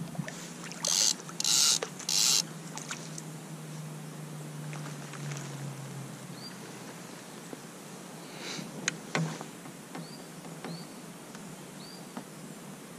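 Fixed-spool spinning reel wound in with a low steady whirr for about six seconds as a small fish is brought in, with three short hissing bursts about a second in. A few clicks follow, with several faint high squeaky chirps near the end.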